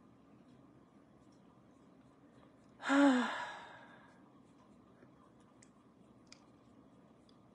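A woman sighing once, about three seconds in: a breathy, voiced exhale that falls in pitch and fades over about a second. A couple of faint ticks follow.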